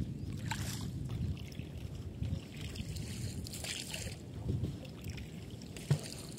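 Wind rumbling on the microphone over water lapping against the hull of a wooden canoe, with a single sharp knock about six seconds in.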